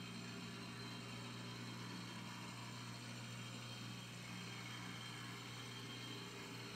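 HO-scale brass model of a Vulcan 50-ton duplex steam locomotive running steadily on its open-frame electric motor: an even motor hum over a hiss from the running mechanism.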